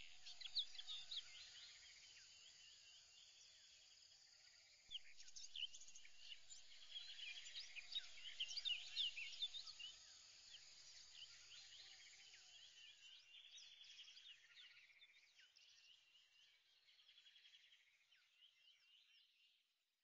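Faint chorus of small birds chirping, busiest in the middle, then thinning and fading out near the end.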